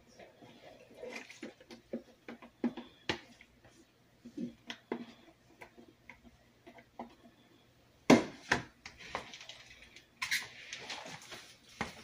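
Macaroni and cheese being scraped and tipped from a plastic Tupperware microwave pasta maker into a plastic mixing bowl, with scattered light knocks and clatters of utensil and plastic. The louder knocks come about eight seconds in.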